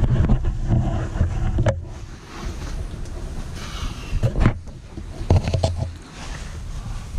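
Rumbling handling noise from a camera being carried and moved about, with a few sharp knocks and scrapes on rock in the middle of the stretch.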